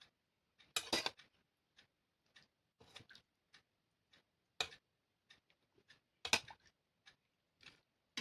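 Close-miked eating sounds of rice and chicken curry: irregular wet mouth clicks and smacks, with louder bursts about a second in, around three seconds, near the middle and about six seconds in.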